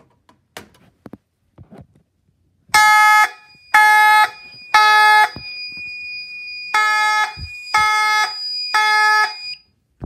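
Fire alarm horns sounding the temporal code-3 evacuation pattern: three short blasts, a pause, then three more. A steady high-pitched tone runs underneath through the second half and cuts off with the last blast.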